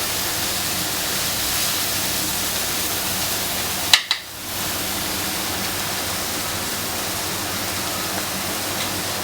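Marinated chicken breast sizzling steadily in a very hot skillet. About four seconds in there is one sharp click, and the sizzle briefly drops away before returning.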